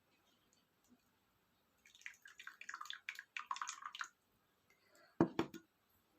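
Rice and curry being mixed on a plate: a dense run of short, moist crackles for about two seconds, then two sharp knocks near the end.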